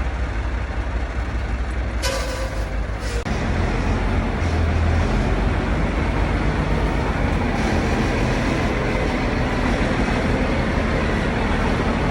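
Cummins NTA 855 turbocharged inline-six diesel engine running. About two seconds in, a hiss with a faint whistle lasts about a second; then the engine gets louder and runs on steadily.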